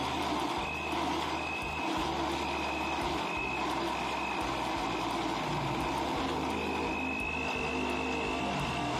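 Electric countertop blender running steadily, blending a fruit drink. A thin high tone comes and goes over the motor noise, and holds longer near the end.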